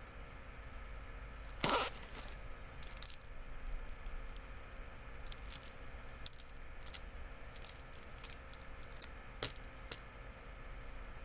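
Light handling sounds: one loud rustle a little under two seconds in, then scattered small clicks and crinkles.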